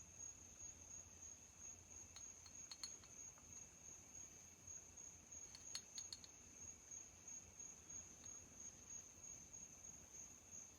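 Near silence: a steady faint high-pitched whine with a low hum beneath, and a few faint light clicks of parts being handled.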